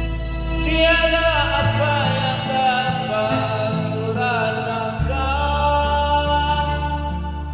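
Karaoke singing over a backing track: a voice holds and slides between long notes over steady accompaniment.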